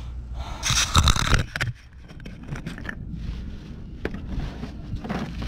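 Metal scraping and rattling at the rusty exhaust under the truck. A loud crackling burst starts about half a second in and lasts about a second, then gives way to softer scrapes and ticks.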